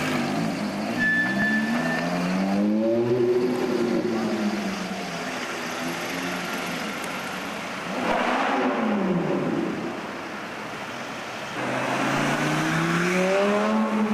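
Supercar engines accelerating hard and driving past. The pitch climbs and falls about three seconds in, sweeps down around eight seconds as a car passes, and climbs again under heavy acceleration near the end.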